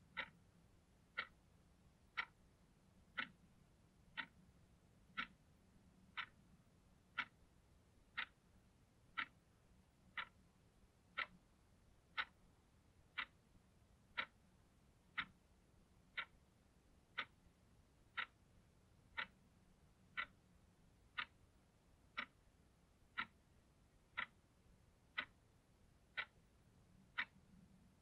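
Blue analog alarm clock ticking, one sharp, evenly spaced tick each second.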